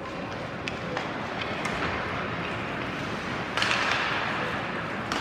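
Ice hockey play in a rink: scattered sharp clacks of sticks and puck over steady arena noise, with a short loud hiss about three and a half seconds in that fits skates scraping the ice.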